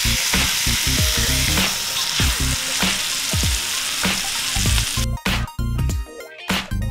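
Ribeye steaks sizzling in a hot, oily frying pan over background music with a steady beat. The sizzle stops about five seconds in, leaving only the music.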